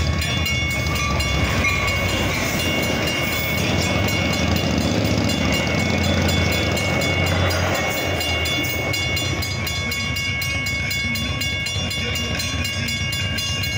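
Metra bilevel commuter train passing over a grade crossing, its wheels rumbling on the rails, the rumble easing in the last few seconds as it clears. The crossing-signal bells ding rapidly and steadily throughout.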